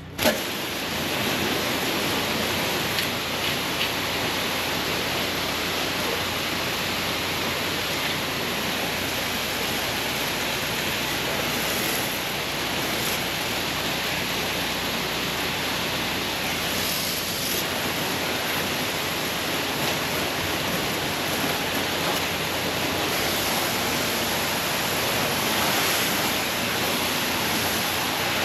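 Pressure washer spraying water: a steady, loud hiss that starts abruptly and holds evenly.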